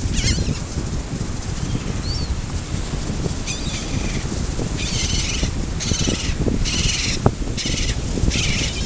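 Small birds calling: a few short chirps, then about five harsh, buzzy calls repeated in quick succession in the second half. Under them runs a steady low rumble, with a single knock about seven seconds in.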